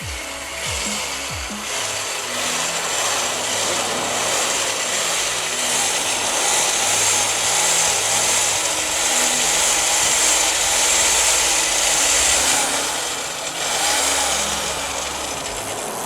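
A power tool running continuously with a harsh, hissing whir, briefly easing off about 13 seconds in, over background electronic music with a bass line.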